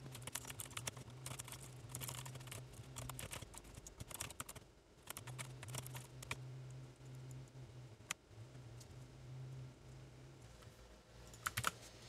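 Typing on a Keychron K8 mechanical keyboard with clicky switches and Selectric-style keycaps: a fast, uneven run of key clicks with short pauses, and a few sharper clicks near the end.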